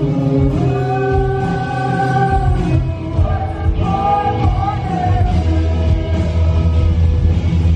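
Live rock band playing: a singer holds long sung notes over electric guitar and drums.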